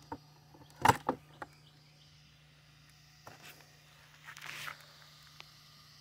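Hard plastic body of a remote-control monster truck being lifted off its chassis: a sharp clattering knock about a second in, two lighter knocks right after, then a few small clicks and a brief rustle.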